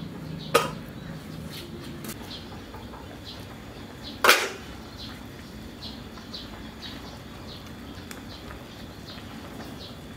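Metal cookware clanking at an aluminium soup pot: a sharp clink about half a second in and a louder, ringing clank a little past four seconds, with faint high ticks scattered throughout.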